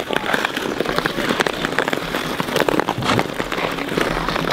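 Ice skate blades scraping and crackling over rough, snow-dusted outdoor ice: a dense, irregular crackle of many small clicks.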